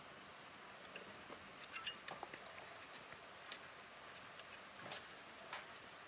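Faint, scattered small clicks and scrapes of a steel dental pick working at the metal clips of a rotary encoder on a circuit board, prying them apart.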